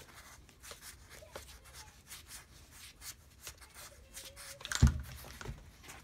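Small clicks and rattles of a metal joystick pilot valve assembly being turned over in gloved hands as the joystick handle is rotated off, with one heavy thump about five seconds in and a lighter knock just after.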